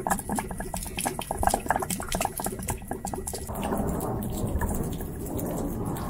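Vinegar-and-water solution gushing out of an RV water heater tank's drain hole, with the relief valve open, and splashing onto concrete. It is a rapid spatter at first, and about three and a half seconds in it changes to a steadier pouring splash.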